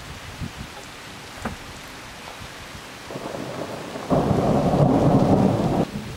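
Steady rain hissing, with a low rumble of thunder that builds from about three seconds in, swells loudest for nearly two seconds and then stops abruptly near the end.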